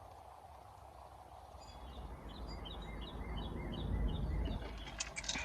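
A bird chirping in a quick, evenly spaced series of short notes, about three a second, over a low background rumble, with a few sharp clicks near the end.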